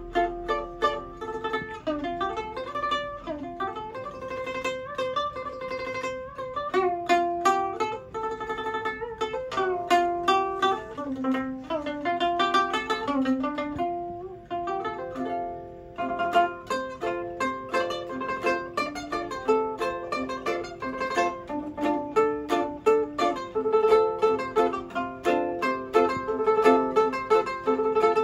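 Two Vietnamese tỳ bà (pear-shaped four-string lutes) playing a melody together, with rapid repeated plucking on many notes; the playing thins out briefly around the middle before picking up again.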